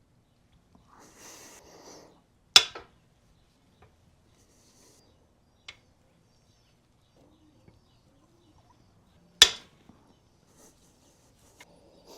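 Two sharp metallic snaps about seven seconds apart, with a few faint ticks between: main bearing cap bolts on a Ford 300 inline-six cracking loose under a hand wrench, an eighth of a turn at a time.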